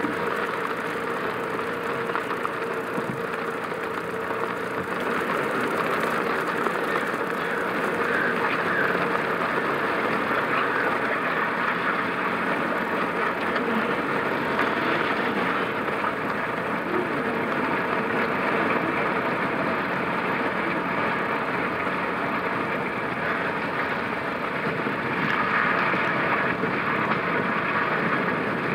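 Car driving on a wet road in rain: steady tyre and road noise with a faint steady hum.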